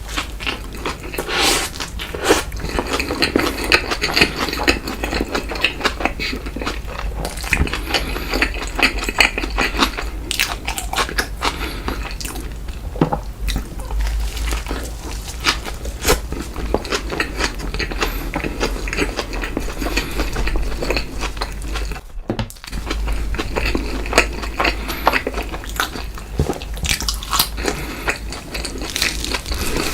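Close-miked mukbang eating sounds: a person biting into and chewing fast food, with crunches, wet mouth sounds and many small irregular clicks. There is a brief dropout about 22 seconds in.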